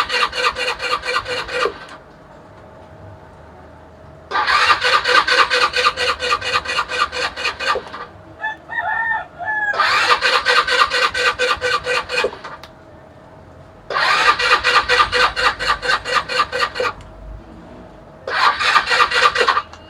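Carburetted motorcycle engine cranked on its electric starter in five bursts of a few seconds each, turning over with a fast, even pulsing but not firing. It is a hard start after long storage, which the mechanic puts down to petrol perhaps not flowing properly into the carburetor.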